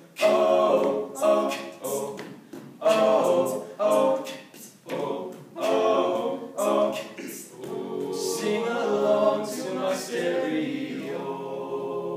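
Small male a cappella group singing in close harmony, with sharp vocal-percussion hits cutting through the sung notes; over the last few seconds the voices settle into held chords.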